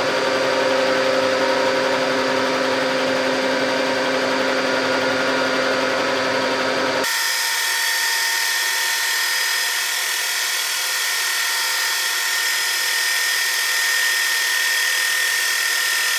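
Bridgeport vertical milling machine running, its end mill taking a pass across an aluminum mold block. The sound is a steady machine whine. About seven seconds in it changes abruptly: the low hum drops away and a higher, brighter whine takes over.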